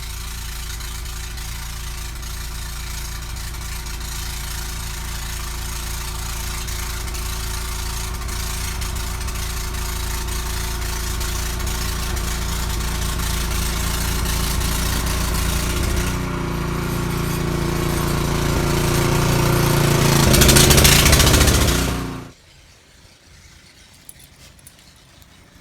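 An engine running steadily and slowly getting louder, with a deeper, stronger sound from about 16 seconds in; it peaks and then cuts off suddenly near the end.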